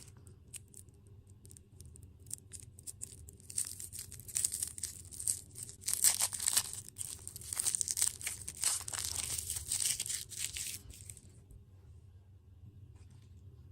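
Plastic packaging being torn open and crinkled. Crackling starts about three and a half seconds in and goes on for about seven seconds, with scattered small clicks before it.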